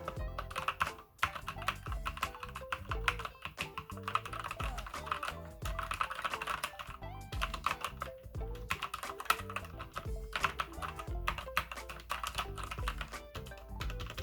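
Redragon mechanical gaming keyboard being typed on rapidly: a dense run of key clicks and clacks, pausing briefly a few times, over background music.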